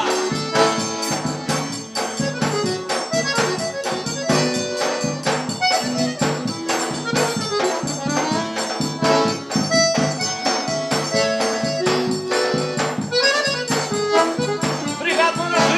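Instrumental São João (forró-style) music: an accordion melody over a steady, even beat of shaken and struck percussion.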